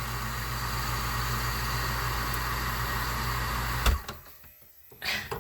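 Electric water pump running with a steady hum, then cut off with a click about four seconds in as it is unplugged. The pump keeps running without shutting off, which the owner takes for a frozen line.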